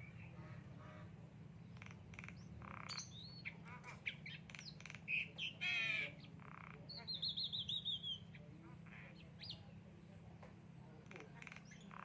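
Javan myna calling: a string of harsh squawks and short whistled notes, loudest in the middle, with a fast warbling trill about seven seconds in. A steady low hum runs underneath.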